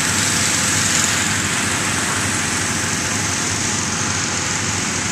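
Hot-air balloon inflation fan running steadily, a continuous loud motor and rushing-air noise, as an envelope is cold-inflated on the ground.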